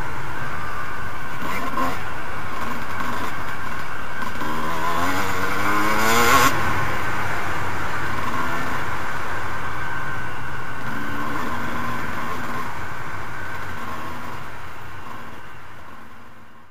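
Suzuki RM250 two-stroke dirt bike ridden off-road, its engine running steadily, then revving up sharply from about four seconds in to a peak near six and a half seconds before dropping back, with a shorter rise later. The sound fades out near the end.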